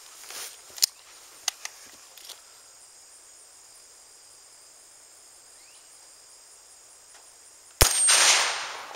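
A single AR-15 rifle shot of 5.56 M193 about eight seconds in, fired at a rubber-faced AR500 steel plate, its report dying away over about a second. Before it, insects drone steadily at a high pitch, with a few faint clicks.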